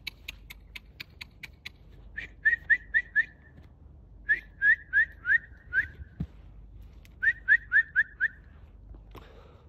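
A quick run of clicks, then three bursts of four or five short whistle notes, each falling in pitch: a person whistling to call a fox.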